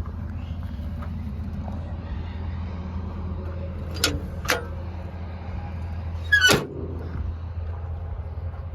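Caterpillar D6D bulldozer's six-cylinder diesel engine idling with a steady low hum, with two sharp clicks about half a second apart around four seconds in and a louder clank a couple of seconds later.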